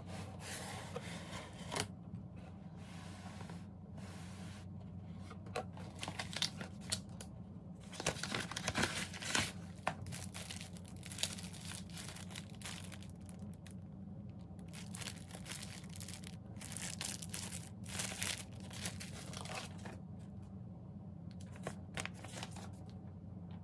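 Paper and packaging rustling and crinkling as a cardboard shipping box is unpacked by hand: printed sheets, tissue paper and box flaps handled in irregular bursts, busiest around eight to ten seconds in. A faint steady low hum runs underneath.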